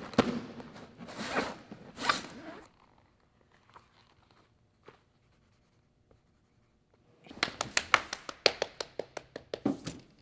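Rustling and zipping as a pink suitcase is opened, then a quiet stretch with a few faint ticks. Near the end comes a quick run of scratchy pen strokes scribbling in a notebook for about three seconds.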